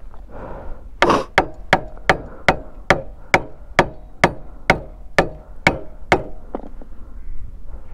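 A stone hammered against a motorcycle's bent brake lever, about thirteen sharp metallic knocks at a steady two or so a second, to bend the lever back out after a crash.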